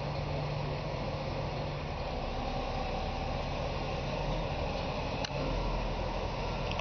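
Heavy equipment engine running steadily at a low, even drone, with a single short click a little after five seconds in.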